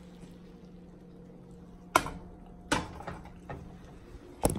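Three sharp knocks, the loudest about two seconds in, another just under a second later and one near the end, over a faint steady hum.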